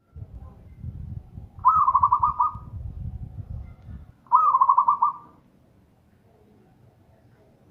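Zebra dove (perkutut) cooing: two calls, each opening with a rising note and running into a quick string of staccato coos, the second coming about two and a half seconds after the first. A low rumble sits under the first half.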